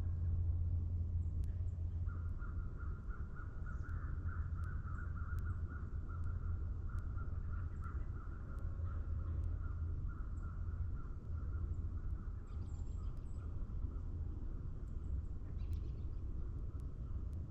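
Morning forest ambience: a steady low rumble under a long, rapidly pulsing animal call that carries on for most of the stretch, with a few faint high bird calls near the end.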